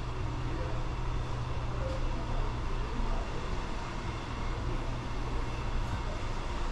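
Steady low hum with an even background noise: room tone, without distinct events.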